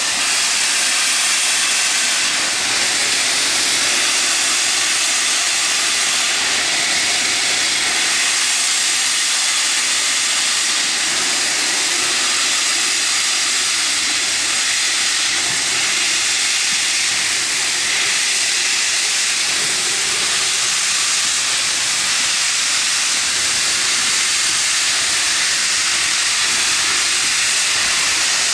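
Peppercorn A1 Pacific steam locomotive 60163 Tornado hissing steam from its open cylinder drain cocks as it moves slowly off. The hiss is loud and steady throughout, with no distinct beat of exhaust beats.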